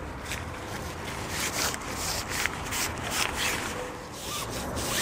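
Carp tent fabric rustling and rubbing in irregular swishes as a stiffening arc pole is worked through the sewn sleeve under the tent's canopy.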